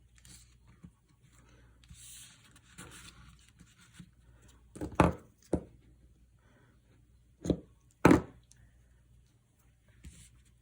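Handling on a craft table: soft rustling of paper and card, then four sharp knocks of things set down or tapped on the table, the loudest about five and eight seconds in.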